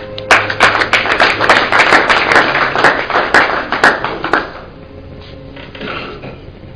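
A group of people applauding, with distinct individual claps, for about four seconds before it dies away.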